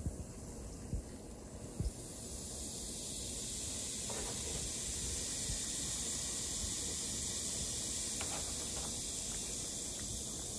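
Baking soda and vinegar fizzing in a model volcano: a steady high hiss that grows louder about two seconds in and then holds. A couple of short light knocks come in the first two seconds.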